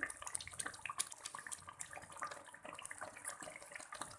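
Masala sizzling and spattering in hot oil in a pan, a steady crackle with many small sharp pops, while a metal spoon scrapes the last of the masala from a second pan.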